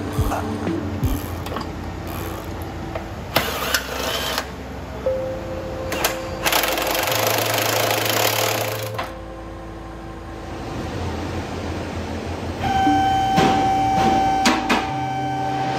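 Background music with steady held notes that change every few seconds, over shop work. A short burst of power-tool noise comes about three and a half seconds in and a longer one from about six and a half to nine seconds in.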